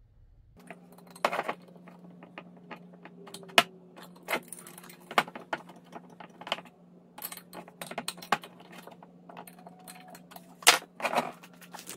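Wrench and nuts clinking and clicking irregularly against the engine-mount bracket as nylon lock nuts are tightened onto the mount bolts of a half-VW engine case, with a few sharp louder clinks, over a steady low hum.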